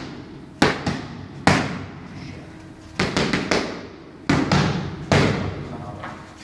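Boxing gloves smacking into focus mitts during pad work. The punches come as two single hits, then a quick flurry of about four, then two more. Each is a sharp smack followed by a short echo.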